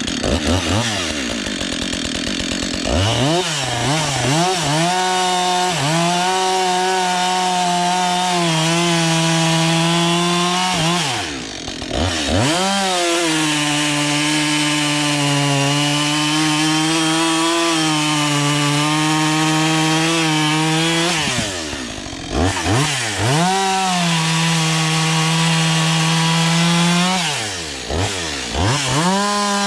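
Husqvarna 562 XP two-stroke chainsaw bucking firewood at full throttle, its pitch sagging as the chain loads up in the log. Three times the throttle is let off and opened again between cuts.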